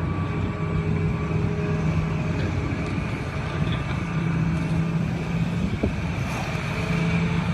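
A steady engine-like hum with a low, unchanging drone.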